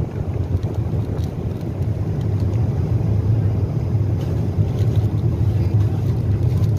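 Steady low roar of an airliner cabin in cruise flight, the engine and airflow noise heard from a passenger seat. A few faint clicks of cutlery and wrappers on the meal tray sound over it.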